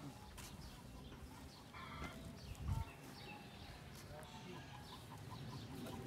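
Faint chickens clucking in the background, with scattered short high calls. A brief low thud about two and a half seconds in.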